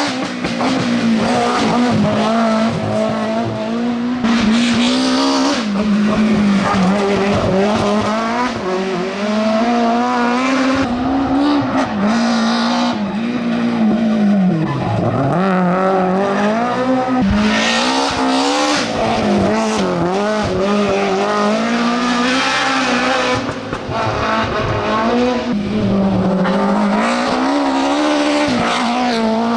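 BMW M3 E30 Group A rally car's four-cylinder engine run hard at full attack. The revs rise and fall repeatedly through gear changes, with a deep drop about halfway through before the engine pulls back up.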